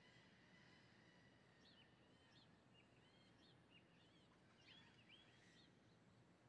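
Near silence, with faint distant birds chirping: a string of short whistled calls starting about a second and a half in, over a low steady background noise.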